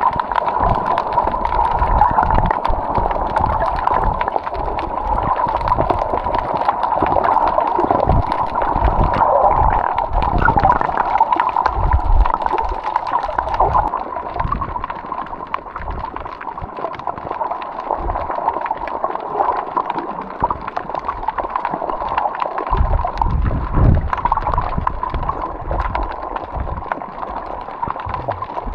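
Water gurgling and sloshing in continuous, irregular surges, with uneven low thumps.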